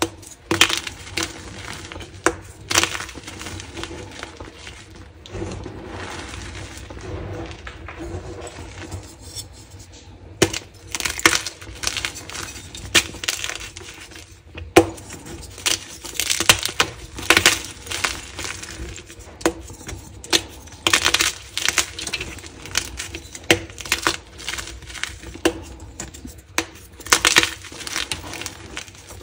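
Dyed gym chalk blocks being crushed and crumbled by hand over a bed of chalk rubble: a run of sharp, dry crunches and gritty crumbling. The crunches are softer and sparser for a stretch before about ten seconds in, then come thick and fast.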